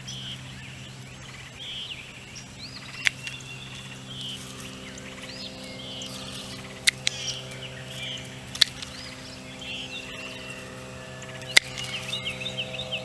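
Grapevine branches being pruned: four sharp clicks spread over the span as dead canes are cut away. Birds chirp throughout, with a quick run of chirps near the end, over a steady low hum.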